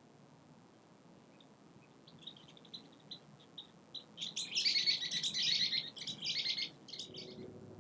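A small bird chirping: a few scattered single chirps, then a quick run of high twittering for about three seconds.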